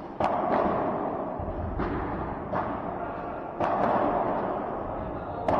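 Padel ball being hit back and forth with rackets on an indoor court: six sharp hits at uneven intervals, each ringing out in the hall's echo.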